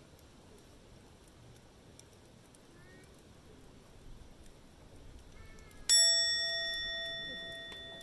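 A single sharp metallic strike about six seconds in, ringing with a clear bell-like tone that fades over about two seconds. Before it, only faint ticking, like a campfire crackling.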